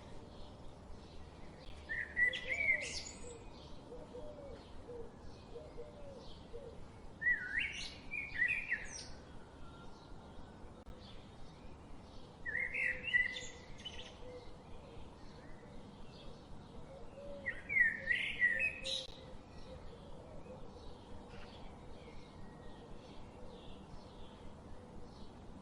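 Black drongo calling: four short, loud phrases of sharp, rising and falling notes, about five seconds apart. A faint, rapid ticking chorus runs steadily behind them.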